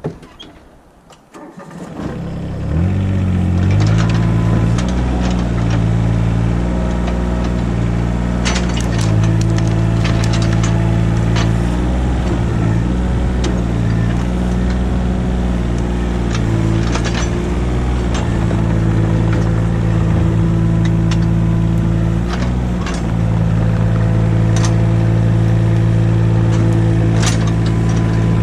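Compact excavator's diesel engine comes up to working speed about two seconds in and runs steadily while the machine digs. Its note dips and recovers now and then as the hydraulics take load, with scattered clicks and knocks from the bucket and linkage.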